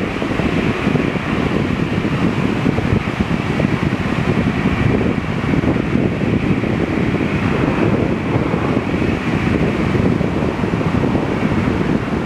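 Steady roar of a jet airliner's engines, unchanging throughout, with wind buffeting the microphone.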